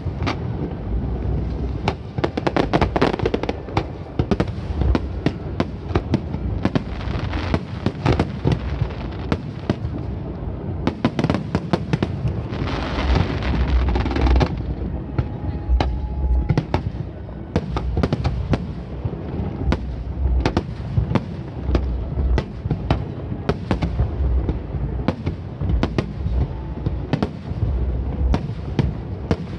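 Aerial fireworks show: a rapid, unbroken barrage of shell bursts, sharp cracks over deep booms, with a denser stretch of hiss and crackle about twelve to fourteen seconds in.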